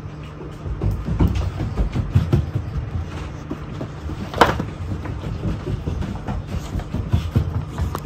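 Mastiffs walking about on a wooden floor, their claws and paws making scattered clicks and knocks, with one sharper click about halfway through, over a steady low hum.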